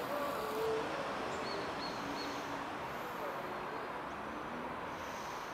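Steady outdoor background noise, with three faint, short high bird chirps about one and a half to two seconds in.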